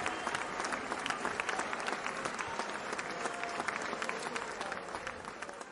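Crowd applauding steadily, a dense patter of many hands clapping, easing off slightly near the end.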